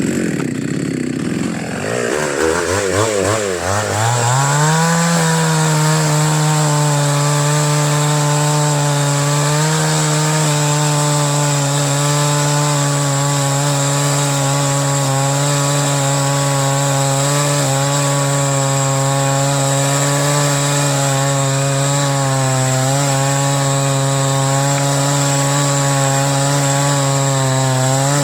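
Chainsaw revved up and down in the first few seconds, then held at high speed with a steady pitch, cutting wood.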